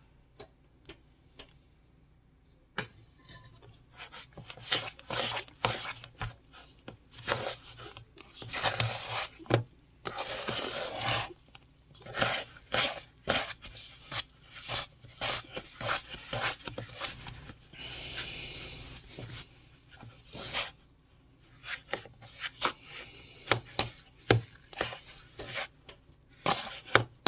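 A metal spoon stirring and scraping soft biscuit dough around a mixing bowl, in many short, irregular strokes that start about three seconds in after a couple of light clicks.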